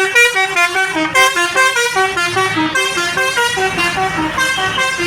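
Basuri bus telolet horn, a multi-note musical horn, playing a quick melody of short stepped notes, several a second, without a break.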